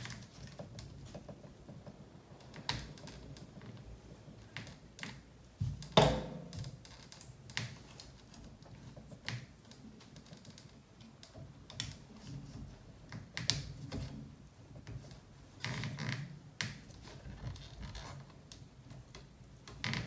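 Hard plastic parts of a nitro RC truck being handled as its fuel tank and retaining clip are worked into the chassis: irregular small clicks and knocks, with one louder knock about six seconds in.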